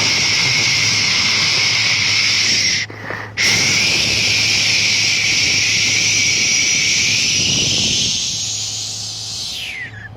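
A jet of blown air hissing steadily, of the kind a hot-air rework gun or an air blower makes during phone charging-port repair. It cuts out briefly about three seconds in, starts again, and fades with a falling pitch near the end.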